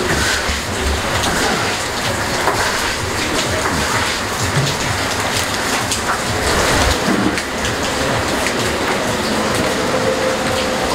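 Steady rain falling, a dense even hiss with fine patter.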